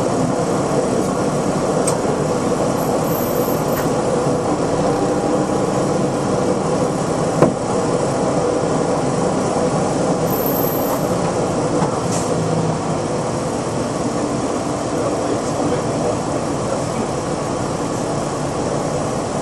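Steady engine and road noise inside a moving city bus, with one sharp click about seven seconds in.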